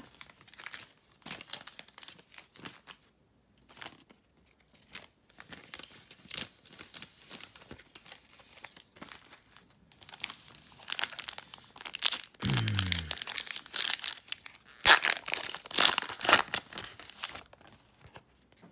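A plastic trading-card pack wrapper crinkling and being torn open by hand. Light scattered rustling at first turns into a burst of loud crackling and tearing in the last third.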